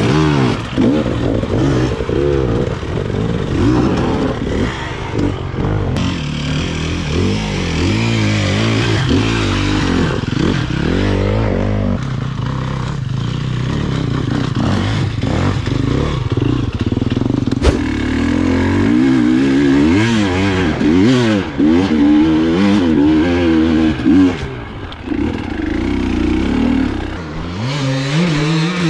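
Two-stroke KTM 300 EXC enduro bike engine revving up and down over and over as it picks its way over rough ground, with clatter and knocks from the bike over rocks and roots.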